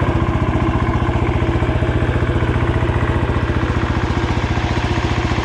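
Cub Cadet 147 garden tractor's single-cylinder Kohler engine running steadily and loudly off choke, with a fast, even firing pulse. The hood and unbolted fenders rattle from the engine's shaking.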